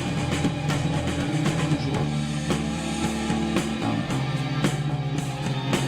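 Instrumental rock music: drum kit with guitar and bass, a steady beat with frequent drum hits and sustained low notes.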